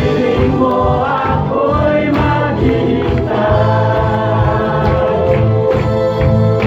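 Worship team of men and women singing a Tagalog praise song together into microphones, over amplified backing music with a steady low beat.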